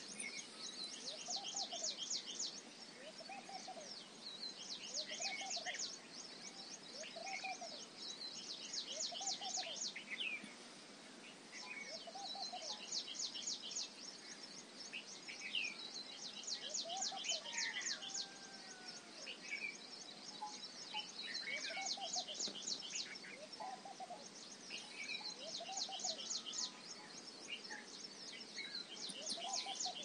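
Countryside wildlife ambience. Fast, high-pitched pulsing trills come in repeated runs of one to three seconds, over a low call that rises and falls about once a second, with scattered short chirps between.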